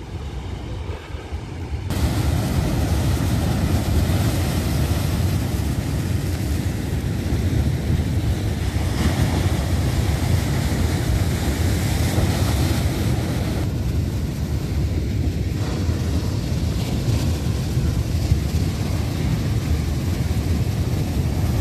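Surf breaking on a rocky shore, with wind rumbling on the microphone; steady and loud from about two seconds in.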